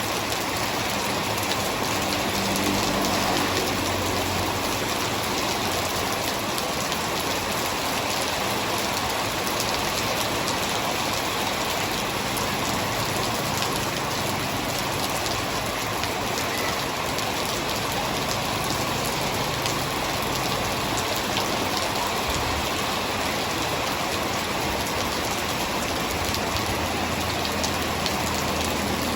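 Heavy rain falling steadily, a dense even patter of drops on surfaces.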